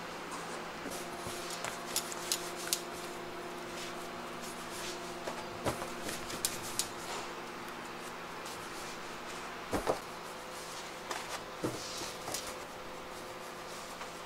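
Bread dough being handled and shaped on a floured steel worktable: scattered soft taps and clicks, the loudest about ten seconds in, over a steady machine hum.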